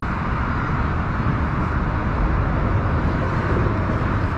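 Wind buffeting the camera microphone: a steady, uneven low rumble with a hiss over it.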